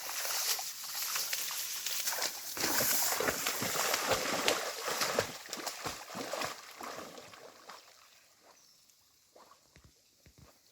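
Water sloshing and splashing as something moves through it, busy for about the first seven seconds and then thinning to a few faint splashes.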